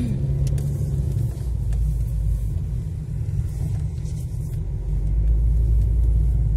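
Car engine and road rumble heard from inside the moving car's cabin, a steady low rumble that grows a little louder in the second half, with a few faint clicks.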